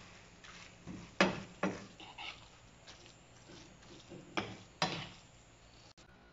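Wooden spoon stirring spaghetti in a nonstick frying pan, scraping and knocking against the pan with a few sharp knocks.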